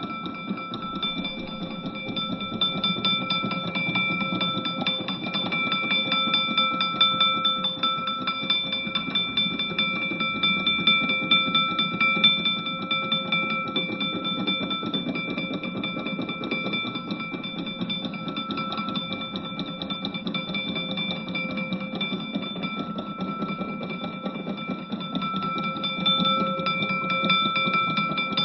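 Mechanical alarm clock bell ringing without a break, the hammer striking the bell in a fast, even rattle over steady ringing tones.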